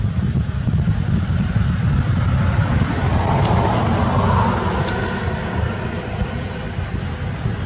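A steady low rumble that sets in abruptly and eases off slightly in the second half.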